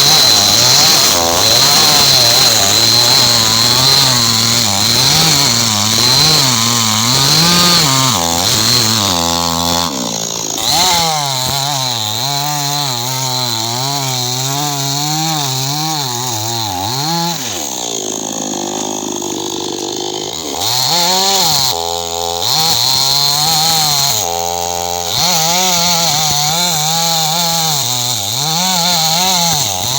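Chainsaw engine running hard and being throttled up and down over and over, its pitch rising and falling about once a second. About two-thirds of the way through it drops briefly to a low idle, then revs up again.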